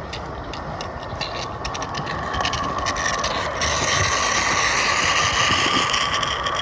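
Roundhouse 32mm gauge live steam saddle-tank locomotive hissing steam as it is set off under its own power, growing louder about three and a half seconds in.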